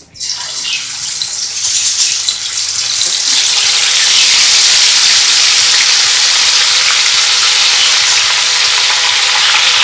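Marinated chicken pieces going into hot oil in a frying pan and deep-frying, a loud sizzle. It starts suddenly, builds over the first few seconds as more pieces go in, then holds steady.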